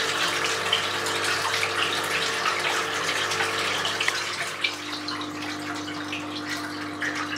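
Water rushing and splashing through a small LEGO water turbine as it spins its generator, with a steady hum underneath whose pitch drops about four and a half seconds in.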